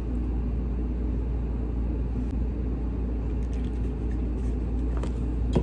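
Steady low background rumble, with one sharp click near the end.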